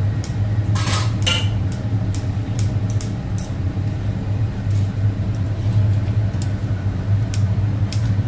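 Kitchen scissors snipping cooked lamb offal and clinking with a fork against a large metal pot and a china bowl: short sharp clicks, with a brief louder scrape about a second in, over a steady low mechanical hum.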